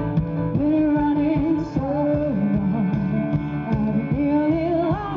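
Dance music with a singing voice carrying the melody over a steady beat.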